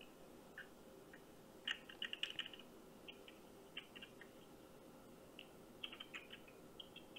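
Computer keyboard typing heard faintly through a phone's speaker: irregular runs of light clicks, the busiest about two seconds in and again near six seconds.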